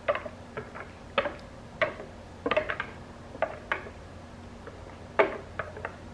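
Irregular drips, splats and light taps as the last of a thick curry sauce is poured and scraped from a plastic container with a silicone whisk onto chicken in a slow cooker, about a dozen in all, the loudest about five seconds in.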